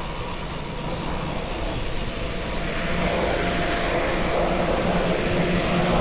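Rushing wind and road noise from a bicycle ride, slowly growing louder, with a faint steady engine drone underneath from about halfway through.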